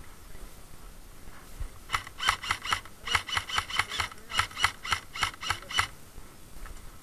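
Airsoft rifle fired in quick single shots from close by: four strings of about four to seven sharp clicks each, about five a second, starting about two seconds in and stopping near the end.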